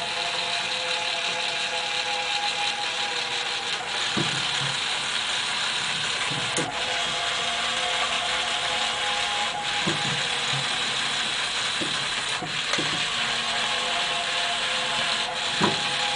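Gear motor of a Gemmy animated floating Grim Reaper prop running steadily as it raises and lowers the figure. It makes a grinding whir with a few steady tones, and a faint click comes about every three seconds.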